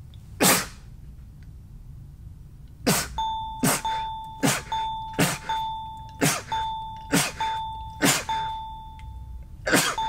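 A man sneezing nine times: one sneeze, a pause of about two seconds, then eight more in quick succession. From about three seconds in, a steady ding-like tone sounds between the sneezes.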